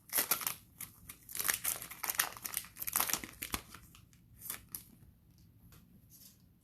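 Cellophane pack wrapper and trading cards being handled, crinkling and rustling in quick, irregular bursts for about four seconds, then only a few faint rustles.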